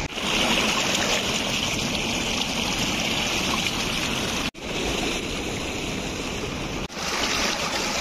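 Mountain stream rushing steadily over rocks. The sound drops out briefly twice, about four and a half and seven seconds in.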